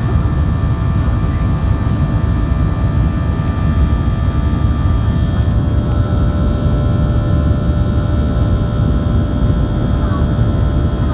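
Boeing 737-800's CFM56 turbofan engines running at climb power, heard inside the cabin: a steady deep rumble with several whining fan tones over it. One of the tones steps up slightly in pitch about five seconds in.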